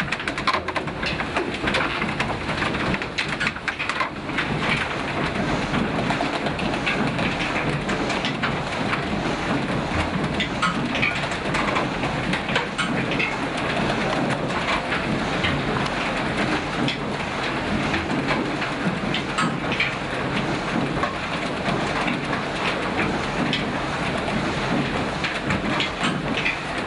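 Old water mill running: a steady rush of water with a dense patter of rattles from its turning gear wheels and belt-driven pulleys.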